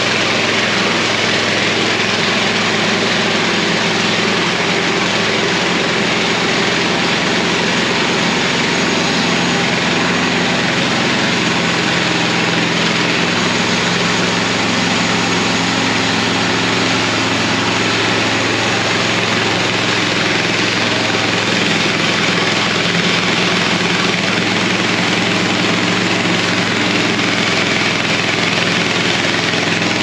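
MechMaxx SM-26 band sawmill running under throttle, its 420 cc, 15 hp gas engine driving the band blade steadily through a log. The engine note shifts slightly about 13 seconds in.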